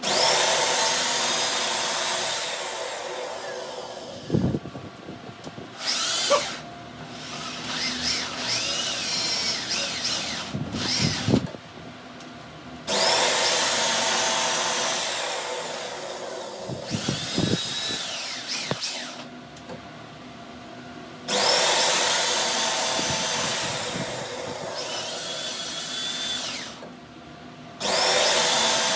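Handheld electric power tool working metal in four bursts of several seconds, each starting abruptly with a high whine that slowly fades, with quieter scraping and clattering between bursts.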